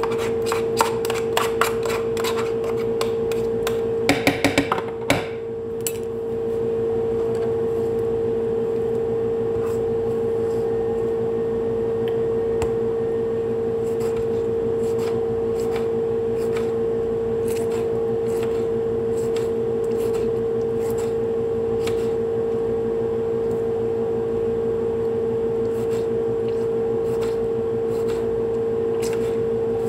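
Kitchen knife slicing tomatoes, its blade tapping now and then on the cutting board, over a steady hum. Near the start, a quick run of clicks and a few louder knocks as a spoon scrapes and taps chopped parsley into a glass bowl.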